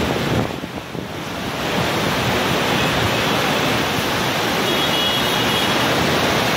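Heavy monsoon rain pouring down, a dense, steady hiss of falling water. It is briefly quieter about half a second in, then comes back to full strength.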